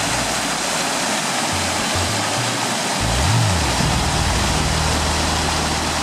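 Rushing water of a rocky stream cascade, a steady hiss, with low background music notes underneath.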